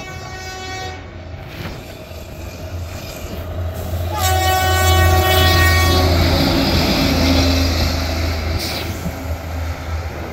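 Self-propelled railway track maintenance machine passing close by. Its horn sounds briefly at the start and again for about two seconds around four seconds in, over a low engine rumble that grows loud as it passes. After that come the noise and rattle of the machine running along the rails.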